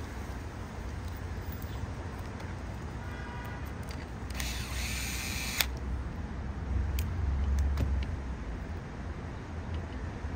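Light clicks and handling of small metal air-rifle parts, a short rustle then a sharp click about five and a half seconds in, as a cocking-lever handle knob is fitted onto a short-throw cocking lever. Under it runs a steady low hum, and a low rumble swells for about a second around seven seconds in.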